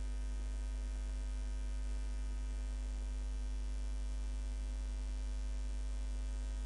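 Steady electrical mains hum with a ladder of evenly spaced fainter overtones above it, unchanging throughout.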